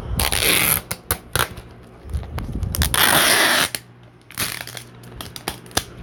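Thick plastic crinkling as it is handled, in three loud bursts of under a second each, with scattered sharp clicks between them.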